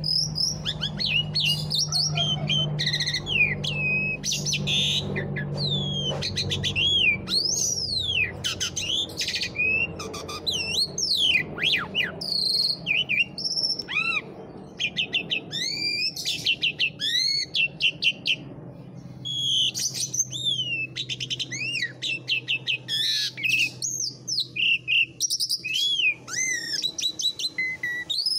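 Pied starling (jalak suren) in full song: a long, varied run of whistles, rising and falling glides and rapid clicking chatter, with only brief pauses.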